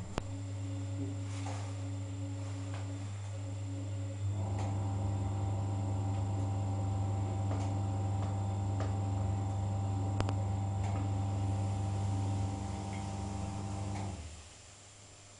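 Cylinda washing machine running with a steady electric hum. It gets louder about four seconds in, eases slightly and cuts out near the end.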